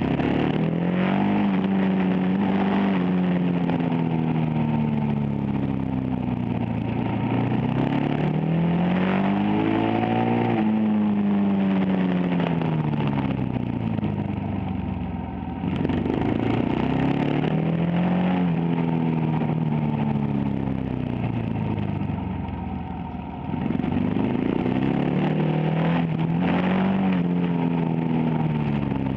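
Supermoto motorcycle engine heard from on board, its pitch climbing under acceleration and falling back several times as the rider works the throttle around a tight track. The sound drops off briefly twice when the throttle is closed.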